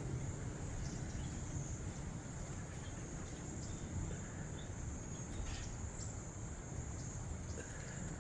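Steady outdoor background: a low rumble under a constant high-pitched ringing, with a few faint short chirps scattered through it.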